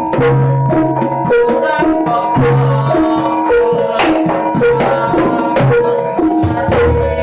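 Jaranan music: hand drums struck in a quick, steady rhythm over pitched metallic percussion stepping through a short melody, with a long held high note throughout.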